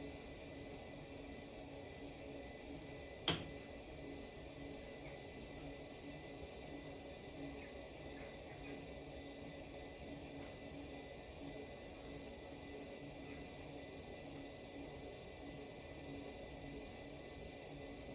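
Electric potter's wheel running at steady speed with a faint hum and a thin, steady high whine. A single sharp click about three seconds in.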